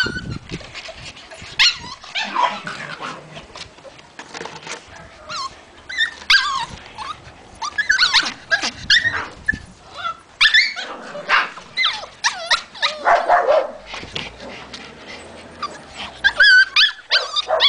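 White Hungarian Puli puppies yapping and barking in many short, high-pitched calls.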